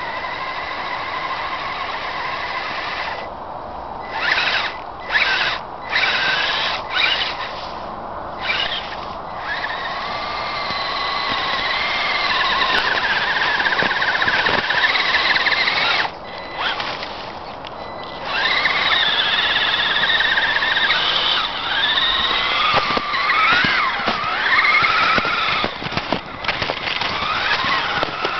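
Axial Wraith RC rock crawler's electric motor and drivetrain whining, the pitch rising and falling with the throttle. It cuts off and restarts several times in quick succession early on, then pauses for about two seconds past the middle.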